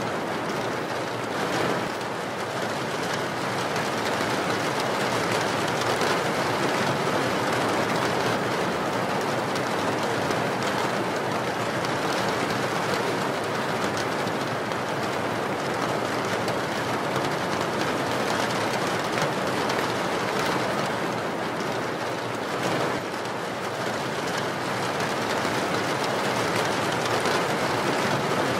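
Steady, even rushing noise with no distinct events, the masking sound track of a subliminal recording.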